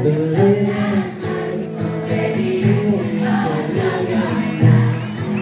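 Live song: a man singing long, wordless held notes over acoustic guitar accompaniment.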